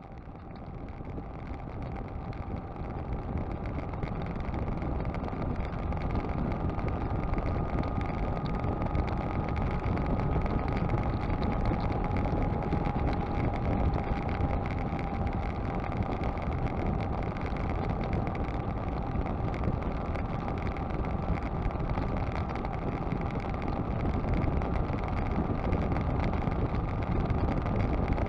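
Motorcycle cruising steadily on the highway, heard from a camera mounted on the bike: wind rush and road noise over the engine, with a steady high whine. The sound fades in over the first few seconds.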